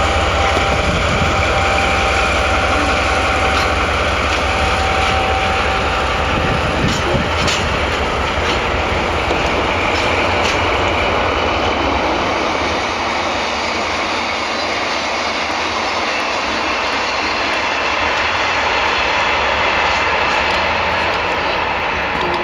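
Freight train running past: a steady rumble of wheels on rail, with a few sharp clacks in the first half.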